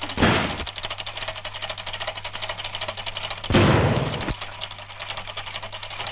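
Two sudden loud bangs about three seconds apart, the second longer and dying away over most of a second. They are comedy crash sound effects over a steady fast ticking clatter.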